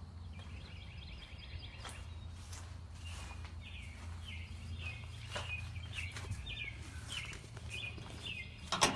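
A bird chirping over and over, short notes about two a second, over a low steady hum, with a sudden loud clatter right at the end.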